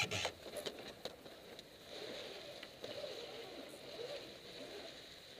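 Water washing along the hull of a J/22 sailboat under sail, low and steady, with a few knocks from the rigging in the first second as the spinnaker is hoisted.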